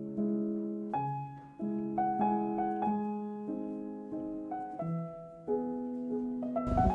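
Background piano music: a slow run of chords, each struck and left to fade before the next, changing about once a second.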